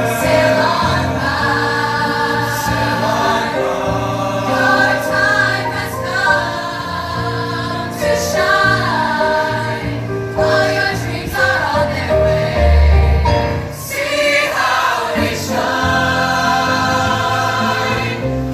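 A choir singing in harmony over instrumental accompaniment with a low bass line that changes note every second or two.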